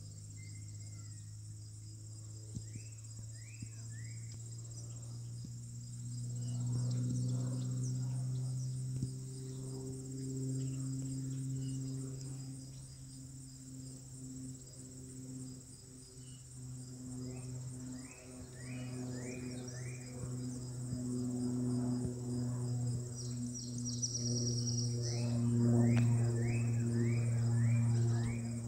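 Insects trilling steadily at a high pitch over a low droning hum that slowly rises and falls in level. Short bird chirps come in little runs of three or four, and a quick high trill sounds near the end.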